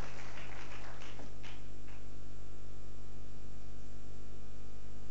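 Scattered applause dying away over the first two seconds, over a steady electrical mains hum that carries on alone after it.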